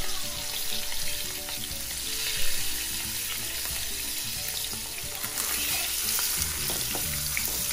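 A whole marinated pomfret shallow-frying in hot oil in a nonstick pan, a steady sizzle and crackle. Near the end a wooden spatula is worked under the fish.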